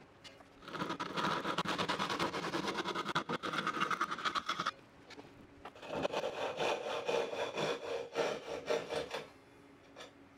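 Japanese ryoba pull saw cutting a thin wooden panel by hand, in two spells of quick, even strokes with a short pause between.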